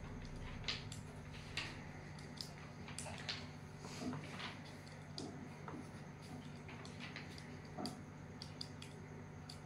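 Small plastic abacus beads clicking now and then as they are flicked, with short scratches of a pencil writing on paper.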